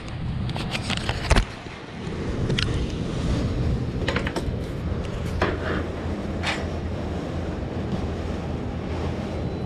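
Strong thunderstorm wind keeps up a steady low rumbling noise, with a few sharp knocks and clicks in the first second and a half and a few more further on.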